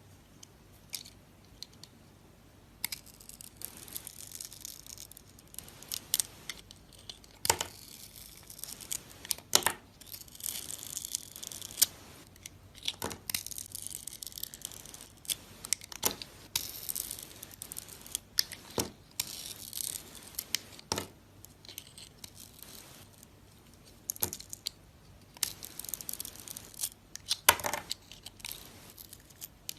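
A knife cutting through soap: irregular scraping and crunching with sharp cracks and snaps, starting after a short quiet opening.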